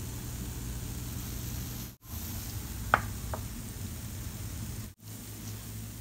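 Food sizzling as it fries in oil in a pan, a steady hiss that breaks off briefly twice, with two sharp clicks about three seconds in.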